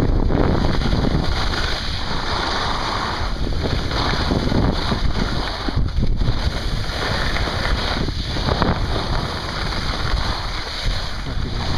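Wind rushing over the microphone of a camera carried by a skier moving downhill, mixed with the hiss of skis on packed snow. The noise swells and dips every couple of seconds.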